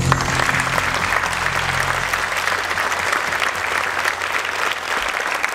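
Audience applauding, a dense patter of many hands clapping. The last low notes of music fade out about two seconds in.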